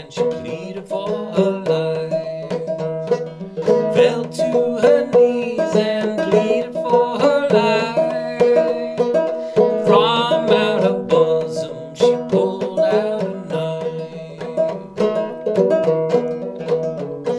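Old flush-fret Buckbee banjo with a new calfskin head and Nylgut strings, played clawhammer in sawmill tuning: a steady, rhythmic old-time tune with a repeated drone note running under it.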